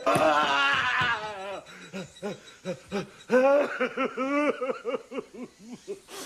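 An elderly man's wordless voice: a loud drawn-out cry in the first second, then a string of short, rhythmic breathy pulses that rise and fall in pitch and grow fainter toward the end.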